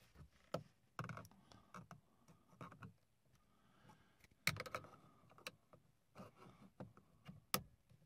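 Faint, scattered clicks and taps of a flathead screwdriver prying at the old, fragile plastic clips of a VW Rabbit GTI headlight switch, with the sharpest clicks about four and a half and seven and a half seconds in.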